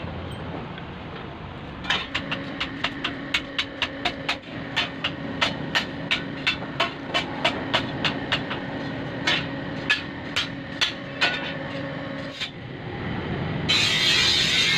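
Rhythmic hammer blows on steel, about two to three a second, over a steady low hum. Near the end the blows stop and a loud hissing rush takes over.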